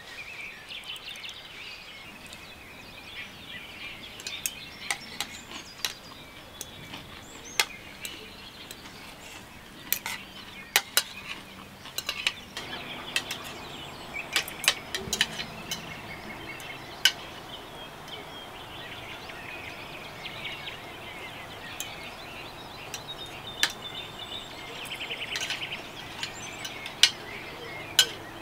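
Metal fork and spoon clinking and scraping on a plate while eating, in sharp irregular clicks, with birds chirping in the background.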